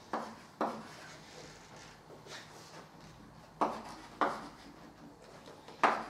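Chalk on a blackboard, writing letters and arrows: about six sharp taps and short strokes, the loudest near the end.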